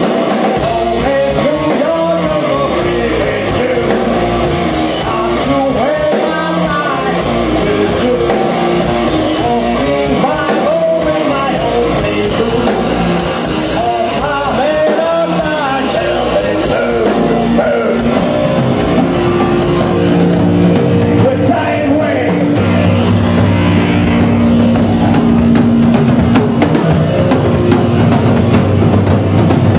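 Live rock band playing: distorted electric guitar, bass and drum kit, with singing over the first part. A little past halfway the singing drops out and the band settles into held, heavier chords, growing slightly louder.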